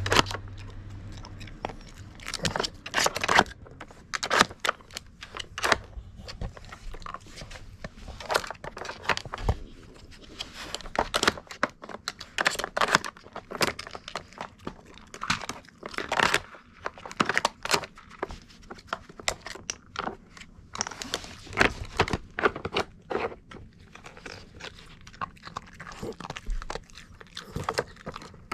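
Mame shiba dog chewing hard treats, with irregular crunches close together throughout.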